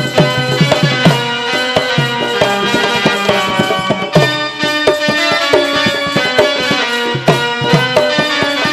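Instrumental Indian music with a quick tabla rhythm, the bass drum's strokes bending in pitch, under held notes from a melody instrument.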